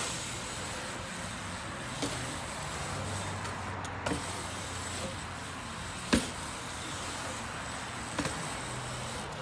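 BMX bike rolling around a concrete bowl: a steady hiss of tyres on concrete, broken by four sharp knocks about two seconds apart as the wheels hit the concrete, the loudest about six seconds in.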